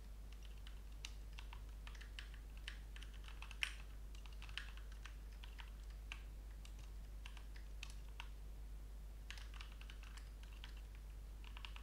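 Typing on a computer keyboard: faint, irregular keystrokes in quick runs with short pauses, one sharper key click about three and a half seconds in.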